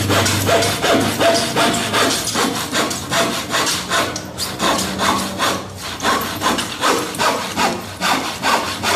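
Hand saw cutting through a wooden board in quick back-and-forth strokes, a steady rasp of about three strokes a second.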